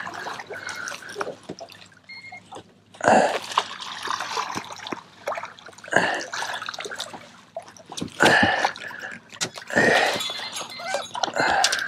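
Irregular splashes and drips of water, several in a row, as a small conger eel wriggles on the line beside the boat.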